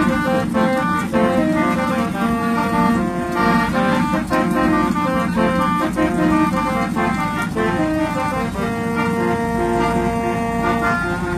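Bus telolet horn, a set of electric multi-tone horns, playing a melody of changing notes with several pitches sounding together, over a running engine. The notes come short and quick at first, then longer held notes later.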